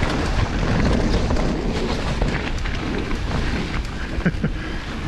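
Mountain bike descending a rough dirt trail at speed: steady wind buffeting on the camera's microphone over a deep rumble of tyres, with many small knocks and rattles from the bike.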